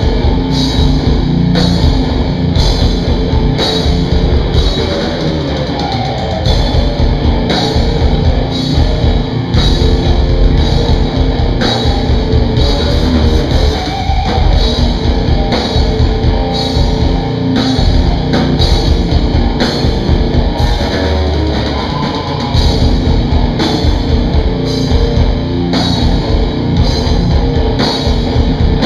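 Heavy metal band playing live: distorted electric guitars, bass and a drum kit, with a steady beat of drum and cymbal hits.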